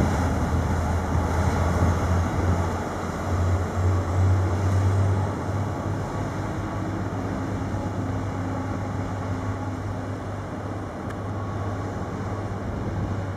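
High-speed catamaran ferry running past at speed: a steady low drone from its engines over a broad rushing noise.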